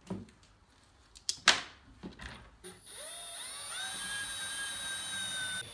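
A power drill spins up in steps and then runs at a steady speed for about two seconds, drilling into the drywall at the marked mounting holes for the junction box. A sharp knock comes about a second and a half in, before the drill starts.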